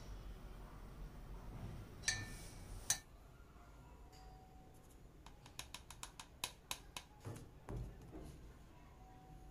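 Light kitchen handling sounds: two sharp clicks about two and three seconds in, then a quick run of light taps and clicks over the next few seconds.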